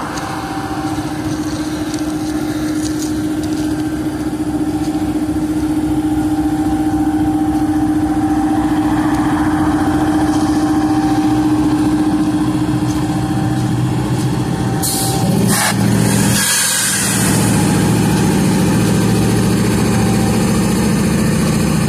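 Norfolk Southern diesel-electric locomotives idling at a standstill: a steady drone with a humming tone that slowly grows louder. About fifteen seconds in comes a short burst of hiss, and after it a deeper engine note takes over.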